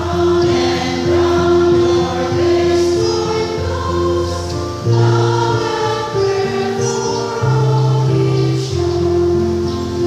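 A church choir of mostly women's voices singing in parts, over steady instrumental accompaniment.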